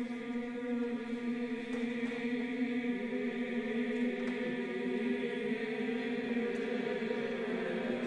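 Background music: a choir-like chanting drone of long held notes, steady and without a beat.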